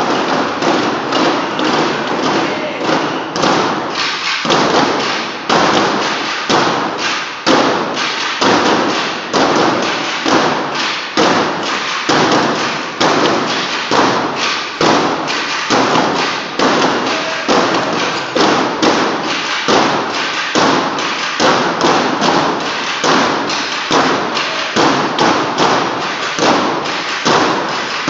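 A group of broomsticks struck down on a wooden stage floor in unison, beating out a steady, even rhythm of thuds and taps.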